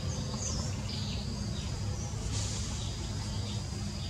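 Forest ambience: insects droning steadily with short high bird chirps over it, and a low steady rumble underneath.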